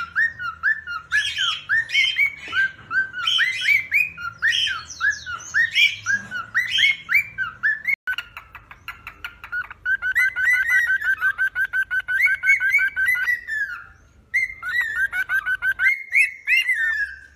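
Cockatiel mating call: a fast, rhythmic run of short, rising whistled chirps, several a second, with harsher squawks mixed in. About eight seconds in it switches abruptly to a quicker, steadier chatter of short notes, which breaks off briefly near the end and then resumes.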